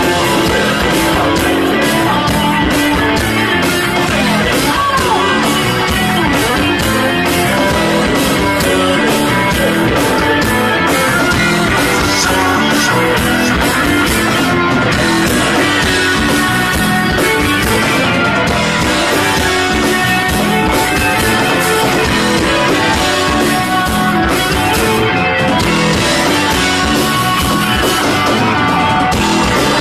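Live rock band playing loudly: electric guitars over a drum kit, steady throughout.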